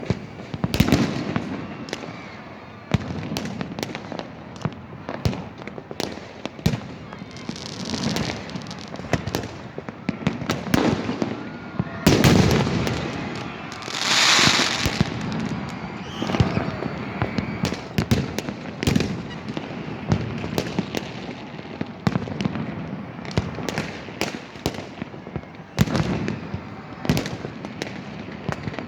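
New Year fireworks and firecrackers going off all around in an uneven run of sharp bangs and pops. About halfway through comes a longer burst of hissing crackle.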